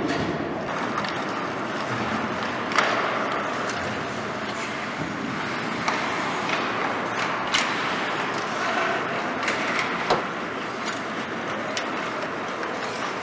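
Ice hockey play in an indoor rink: skates scraping and carving the ice under a steady rink noise, with several sharp clacks of stick and puck, the loudest about three seconds in.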